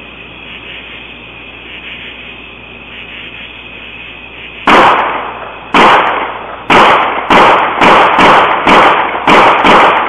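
About nine sharp, loud bangs, irregularly spaced and coming faster toward the end, each echoing away for most of a second, over the steady hiss and thin whine of a security camera's microphone. The uploader suspects they are gunshots.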